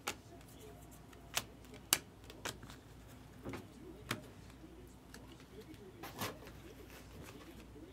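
Baseball trading cards being handled: irregular sharp clicks and taps as cards are flipped through and set down, the loudest about two seconds in.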